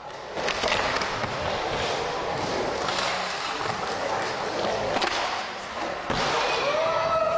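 Skateboard wheels rolling and carving through a bowl, a steady rumble broken by a few sharp knocks of the board on the bowl, the loudest about six seconds in as the skater reaches the lip.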